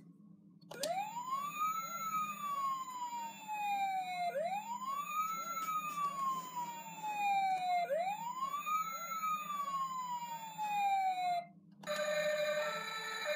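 Toy fire engine's electronic siren wailing: three cycles, each swooping up quickly then sliding slowly down in pitch. It cuts off and a different electronic sound pattern starts near the end.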